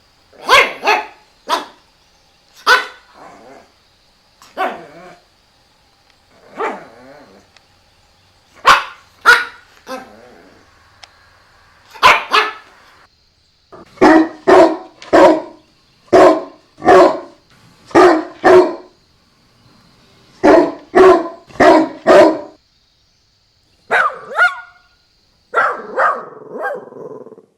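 A dog barking over and over: short, sharp barks, often in quick pairs or runs of three or four, with brief pauses between the groups.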